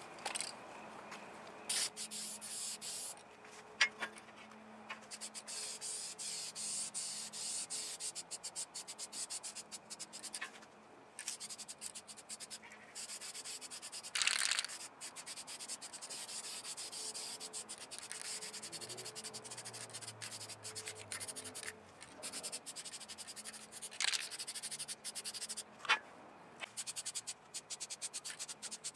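Aerosol spray-paint can hissing in repeated passes that stop and start, laying light, even coats of engine paint onto a masked engine block, with a few sharp clicks from the can.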